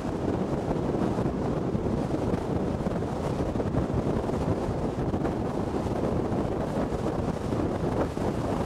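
Wind buffeting the microphone over the steady road and tyre noise of a car driving at highway speed.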